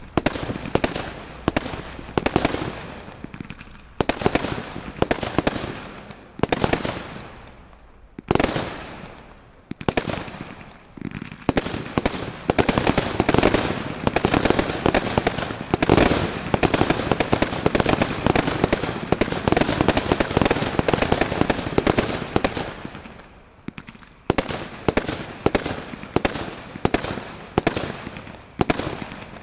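Brothers Grand Slam high-noise firework cakes firing: sharp launch-and-burst reports about two a second. They build midway into a dense, unbroken volley of bangs and crackle, fall briefly quiet, then go back to steady shots.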